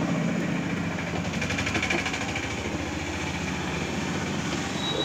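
A motor running steadily, an even drone that carries on without a break.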